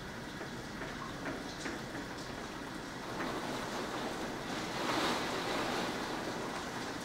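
Severe thunderstorm's wind and rain, a steady rushing noise that swells about three seconds in and is loudest around five seconds.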